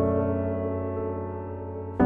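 Background piano music: a held chord slowly dying away, with the next chord struck right at the end.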